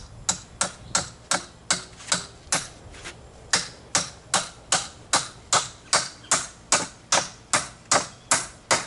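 Claw hammer driving nails into a wooden door frame: a steady run of about two dozen sharp strikes, close to three a second, with no pause.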